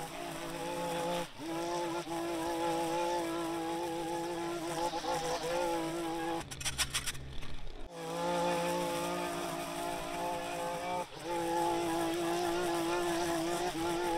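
A small engine, such as a handheld yard power tool, running steadily at high speed with a buzzing drone. It cuts off sharply about a second in, for over a second past the middle, and again a few seconds before the end.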